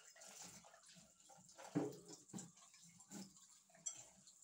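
Dishes being washed by hand at a kitchen sink: water splashing and trickling, with short knocks and clinks of the dishes, the loudest about two seconds in.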